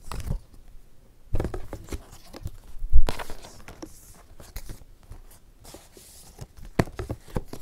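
Hands handling a boxed music album: a paper photo book and inserts rustle and slide against the cardboard box as they are packed back in, with light knocks as pieces are set down, the firmest about three seconds in.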